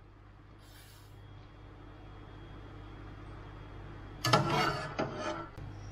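Metal cookware and a metal slotted spoon clattering and scraping, in a short burst of knocks about four seconds in, over a low steady hum.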